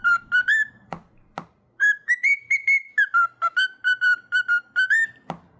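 Pet parrot whistling a fast run of short chirping notes, about five a second, rising a little in pitch about two seconds in and settling back, with a few sharp clicks in between.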